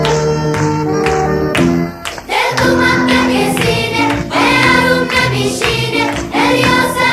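Music: an instrumental passage of steady notes, then singing voices come in about two and a half seconds in.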